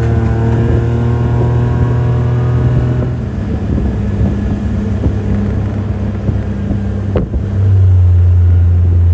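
Car or truck engine and road noise heard from inside the moving vehicle. The engine hum holds steady, gives way to road noise after about three seconds, and comes back strong near the end. A brief rising whine comes about seven seconds in.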